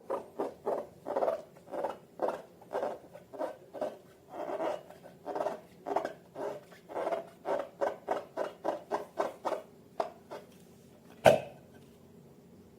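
Long rubber balloons being squeezed and rubbed by hand, a quick run of short squeaks two or three a second, followed near the end by one sharp loud snap.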